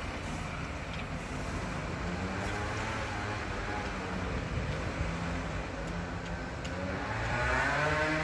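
City street traffic: a campervan's engine pulling away, with a steady rumble of running engines and near the end an engine note rising in pitch and getting louder as a vehicle speeds up.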